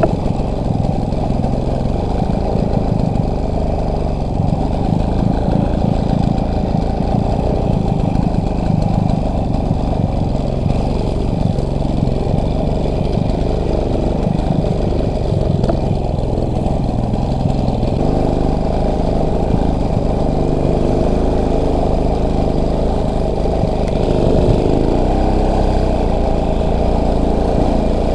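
Motorcycle engine running steadily and close to the microphone.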